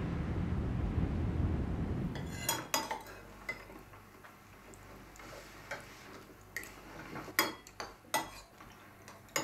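A low, steady rumble of wind that cuts off suddenly about two seconds in. After it, knives and forks clink and scrape against dinner plates in a hushed room, in scattered sharp clinks.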